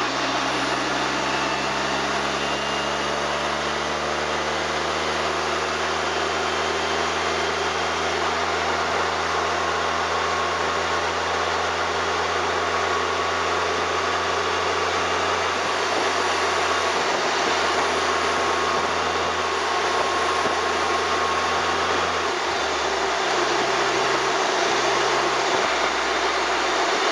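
Car running at a steady pace: steady engine and road noise, with a faint thin whine that comes and goes. This is the abnormal noise the owner suspects comes from the suspension or from near the turbocharger.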